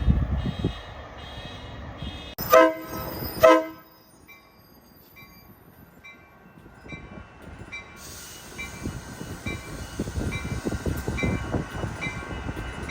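Amtrak Pacific Surfliner train horn sounding two short blasts a few seconds in. Then a bell dings about twice a second while the rumble of an approaching train grows louder.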